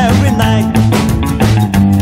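Live band playing upbeat rhythm and blues: saxophone lead over a plucked upright double bass and a drum kit, with a steady beat.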